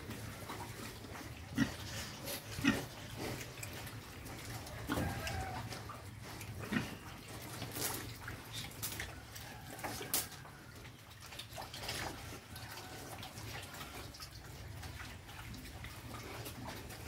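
Young pigs feeding side by side at a trough, making irregular eating noises at the feed, with scattered short grunts and a few sharp knocks.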